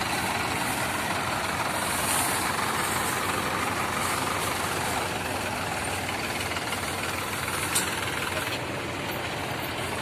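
Several tractors' diesel engines running together in a steady, dense drone, with one sharp knock about eight seconds in.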